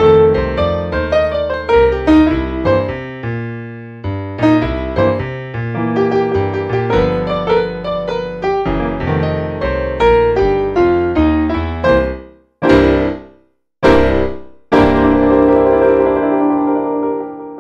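Grand piano playing a blues piece. Near the end come two short, detached chords about a second apart with silence between them, then a final chord that is held and left to fade.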